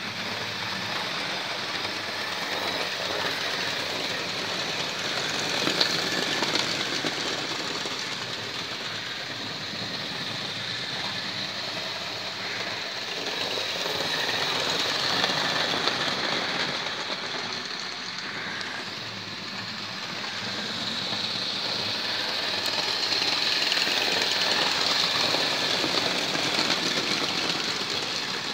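Model trains running on a layout's metal track: a steady whir and rattle of small locomotive motors and wheels, growing louder twice, in the middle and near the end, as trains pass close.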